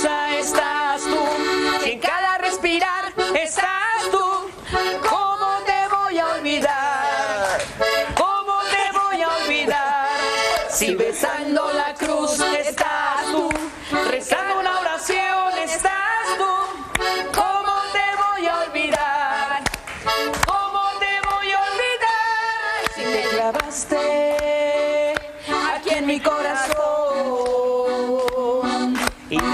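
Cumbia music led by a piano accordion playing the melody over a steady beat.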